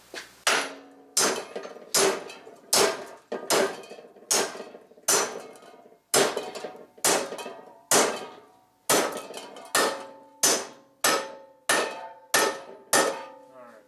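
Steady hammer blows on a metal strip clamped in a bench vise, about twenty strikes at roughly one every half to three quarters of a second, each with a short metallic ring. The strip is being hammered over into an L bracket.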